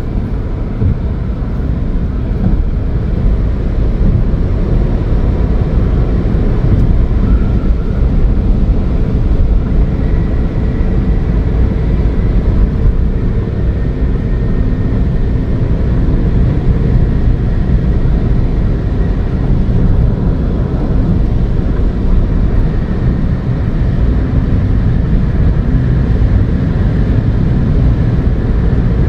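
Steady road, wind and engine noise inside the cabin of a Ford Fiesta 1.0 EcoBoost, its turbocharged three-cylinder running while the car cruises at high speed.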